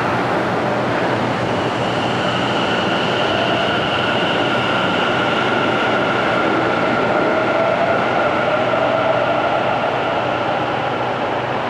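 Tobu 50050-series electric train pulling out of an underground station and drawing away down the tunnel. Its running noise is steady, with a whine whose pitch rises a little partway through.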